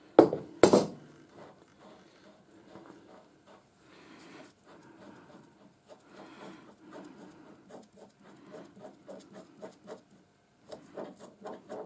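Two sharp metallic knocks, then light scratchy rubbing and quick ticking as gloved fingers spin the threaded end cap off a lathe live centre held in a vise. The ticking grows busier and more rhythmic in the last few seconds.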